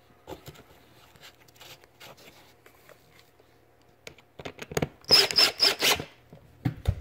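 A quick run of scraping rubs, about four in a row, roughly two-thirds of the way in, after faint handling clicks, with a dull thump near the end.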